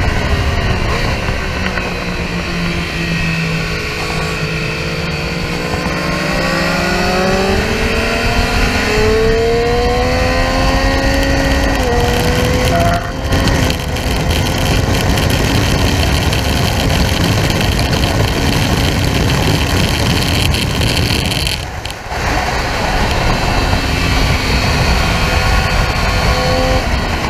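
Triumph Street Triple R's inline three-cylinder engine heard from onboard at track speed over heavy wind rush. It drops in pitch off the throttle, then climbs steadily under hard acceleration, with a short break for a gear change about halfway through, then runs on under loud wind noise with another brief dip near the end.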